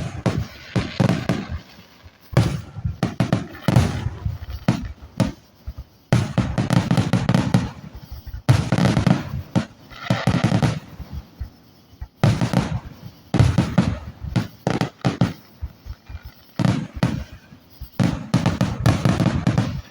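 Fireworks display going off in dense volleys of overlapping bangs and crackling, with short lulls between the volleys.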